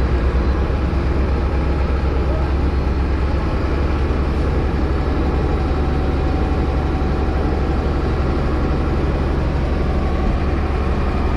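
Diesel engines of a dump truck and an asphalt paver running steadily with a deep low rumble while the truck's bed tips up to unload asphalt into the paver's hopper.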